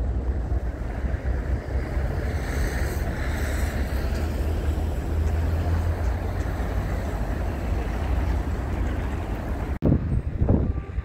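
Wind buffeting a phone microphone, a steady low rumble with no clear tones. It drops out abruptly near the end, then comes back in a few gusts.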